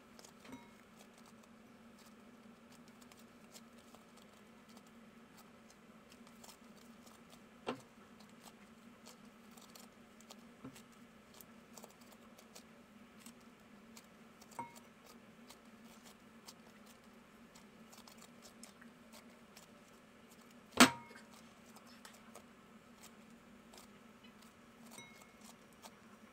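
Quiet hand-handling of soft bread dough as it is pulled and squeezed over a glass mixing bowl, with scattered small clicks and taps and one sharper click about 21 seconds in, over a low steady hum.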